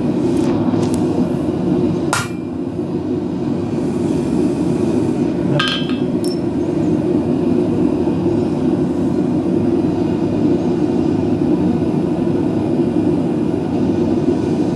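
Steady roar of the forge, with two sharp metallic strikes about two and six seconds in: a hand stamp being hammered into a red-hot steel bar on the anvil.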